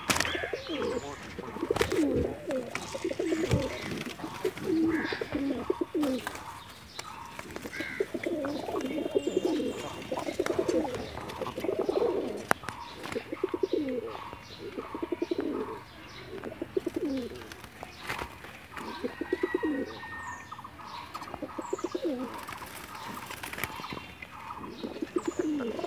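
Domestic pigeons cooing over and over, each coo a low, throaty, rolling phrase about a second long, with a few sharp clicks among them.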